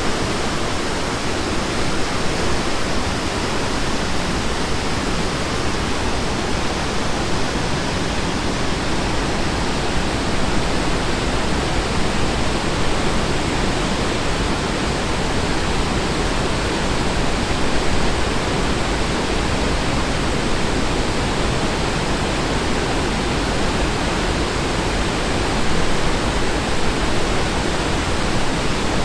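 Steady rushing of fast whitewater, an unbroken even hiss-like rush that holds the same level throughout.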